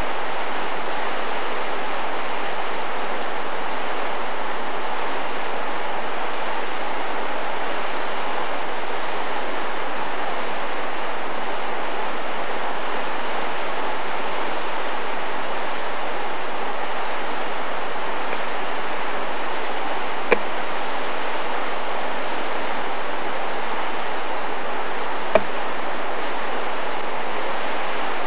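Waterfall pouring through a narrow rock gorge, a steady loud rushing of water that never changes. Two short clicks come about five seconds apart in the latter part.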